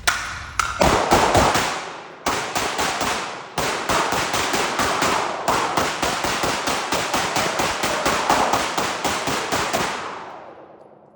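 A long, rapid string of sharp cracking bangs, several a second, with a couple of brief pauses, that dies away near the end.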